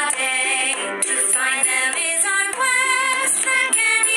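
Background music: a song with a high sung vocal line that wavers in pitch, with almost no bass.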